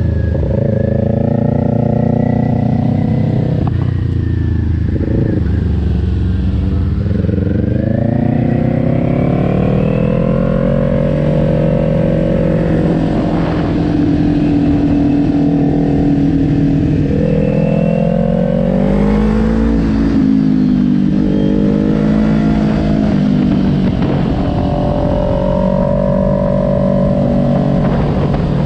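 A 2020 Kawasaki Ninja 400's parallel-twin engine, heard from on board while it is ridden round a track. The engine note climbs through the revs and drops back again several times, with sudden drops about four and twenty seconds in. A steady low rumble runs under it.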